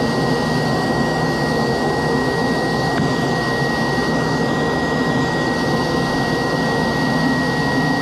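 Vacuum pump of a CNC vacuum table running steadily, a loud rushing drone with a thin high whine held at one pitch, pulling suction through a gasket-sealed zone to hold a workpiece down.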